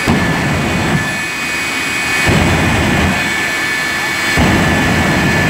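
Jet truck's jet engine running at full blast with a steady high whine under a dense roar. Its afterburner flame sends a low rumble that surges about every two seconds.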